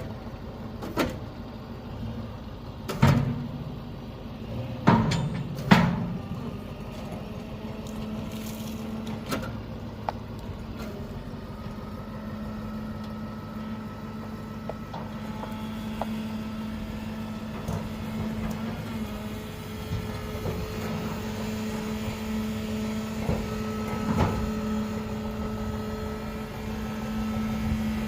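An engine running steadily at constant speed, with several sharp knocks in the first six seconds.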